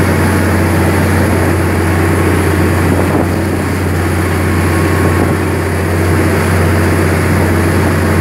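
Riverboat diesel engine running steadily under way, a loud unbroken low drone, with wind and water rushing past the hull.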